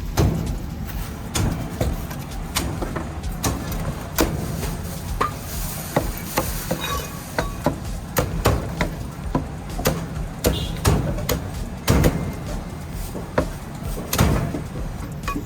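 Cleaver chopping roast meat on a wooden chopping board: irregular sharp knocks, roughly two a second, some much louder than others, over a steady low rumble.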